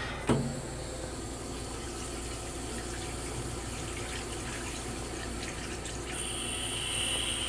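Railcar toilet flushing: blue flush fluid rushing into the stainless-steel bowl as a steady wash of water noise. A steady high whine joins about six seconds in. There is a light knock just after the start as the raised seat settles.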